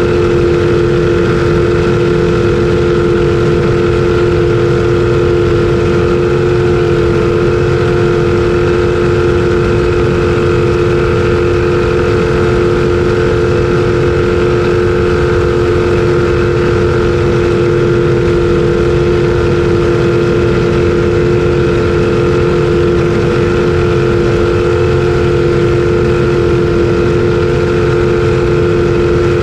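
Racing jet boat's engine running flat out at a steady, unchanging pitch, heard loud from the open cockpit, with a rushing noise underneath.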